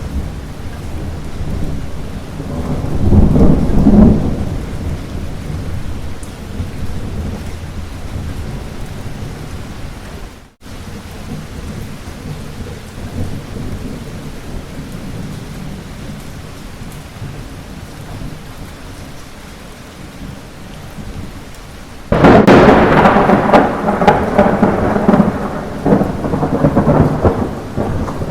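Light rain falling steadily while thunder rumbles. A low rumble swells about three seconds in, and the sound cuts out for a moment about ten seconds in. Near the end a sudden loud thunderclap breaks and rolls on.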